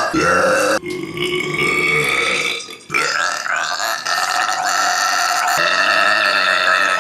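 A run of loud, pitched human belches, forced by rapidly swallowing air, with a brief break a little before three seconds in, then one drawn-out belch lasting about four seconds.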